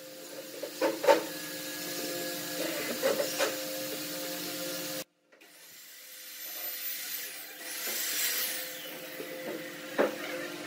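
Wooden parts being fitted together by hand: a few light knocks and clacks of wood on wood, and wood rubbing and sliding as curved ribs are pushed into notched rings, over a steady background hum. The sound breaks off briefly about halfway.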